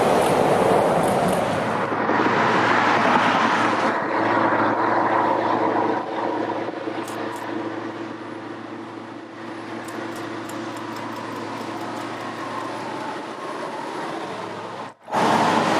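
Heavy truck and trailer driving, a steady rumble of engine and tyres that changes abruptly a few times; the sound drops out for a moment near the end.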